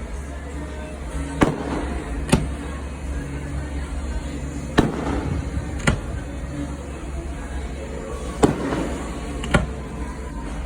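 Fireworks shells bursting: six sharp bangs that come in pairs about a second apart, over a steady low rumble.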